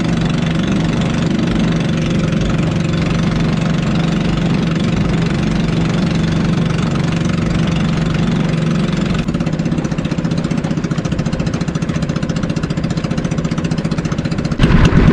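Small outrigger boat's engine running steadily under way. About nine seconds in it eases to a lower, more pulsing beat, and a sudden louder sound comes in just before the end.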